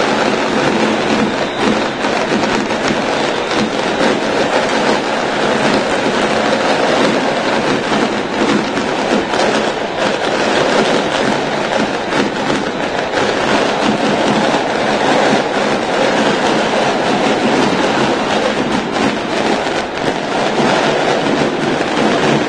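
A fireworks barrage crackling rapidly and without a break, over the constant noise of a packed stadium crowd.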